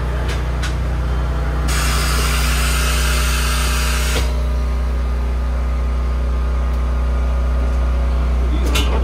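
Steady low machine hum with a loud hiss of compressed air from a pneumatic tire changer, starting about two seconds in and lasting about two and a half seconds. A couple of clicks come near the end.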